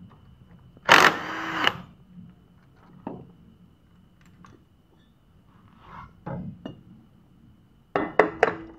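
A cordless power driver runs in one burst of just under a second, about a second in, spinning out a bolt on a motorcycle engine's clutch cover. Small metal clicks and clinks follow as parts are handled, with a quick cluster of sharp clicks and clanks near the end.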